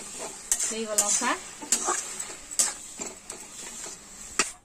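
Flat spatula scraping and stirring cooked greens and pumpkin in a metal kadai, in repeated short, irregular strokes.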